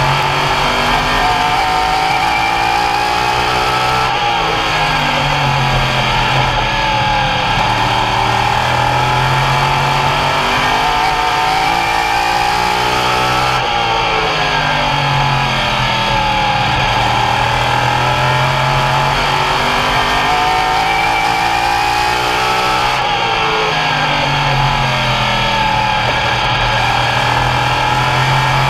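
Open modified race cars lapping an oval, their V8 engines easing off into the turns and accelerating out. The engine note dips and climbs again about every nine to ten seconds.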